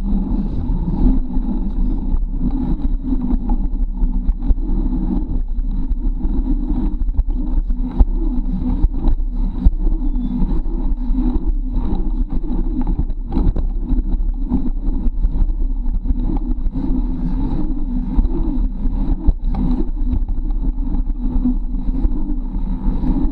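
Wind rumble on a handlebar-mounted camera's microphone and tyre noise from a bicycle riding over asphalt, with frequent small knocks and rattles from the bike as it rolls over the bumps.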